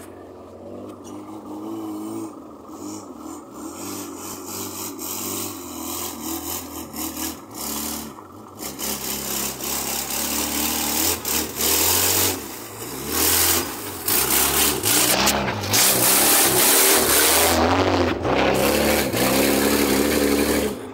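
Engines of a loaded truck and Toyota 4x4s revving hard as they work through deep mud, the noise growing much louder from about halfway through.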